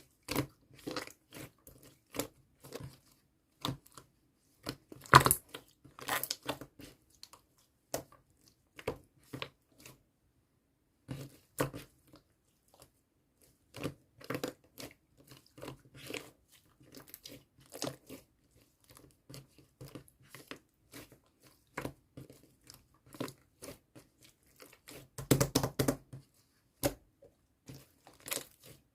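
Slime with a layer of clay on top being squished, poked and stretched by hand, giving irregular sticky clicks, pops and crackles, with a louder cluster about five seconds in and another near the end.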